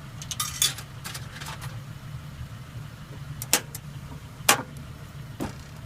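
Coins clinking as they are fed into an egg vending machine, followed by three sharp separate clicks from the machine's button and compartment door. A steady low hum, like an idling engine, runs underneath.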